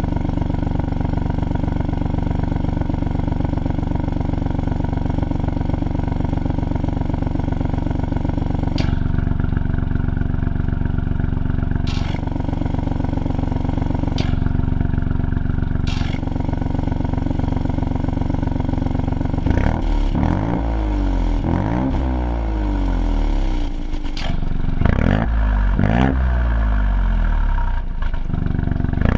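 Ford Fiesta MK8 ST's 1.5-litre turbocharged three-cylinder engine idling steadily through a Scorpion GPF-back exhaust. From about two-thirds of the way in it is revved several times. There is no rattle from the exhaust valve now that it has been fixed.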